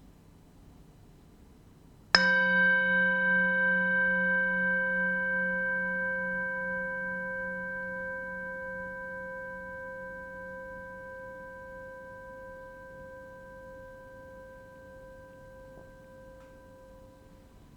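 A singing bowl struck once, about two seconds in, ringing with several overtones and a wavering low hum that slowly fades away over about fifteen seconds.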